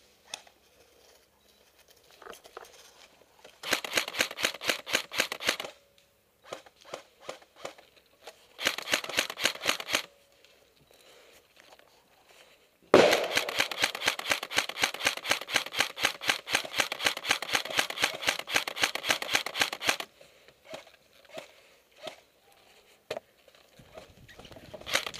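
Airsoft electric rifle firing on full auto: two short bursts of rapid clicking shots, then a long burst of about seven seconds starting about halfway through, with a few scattered single clicks between bursts.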